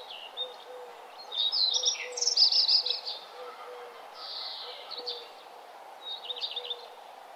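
Songbirds chirping in short, rapid trilled bursts, loudest about a second and a half in and again near the end, over a faint steady background hiss.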